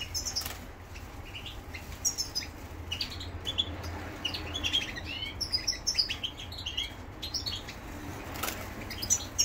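Caged European goldfinch twittering in short, high chirps, with brief wing flutters and hops as it moves between perches.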